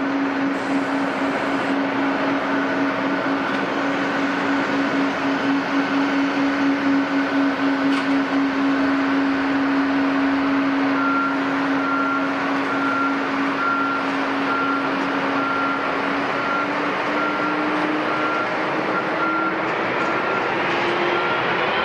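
Jet airliner engines running with a steady whine over a rush of noise, then spooling up with the pitch rising over the last few seconds. A repeating high beep joins about halfway through.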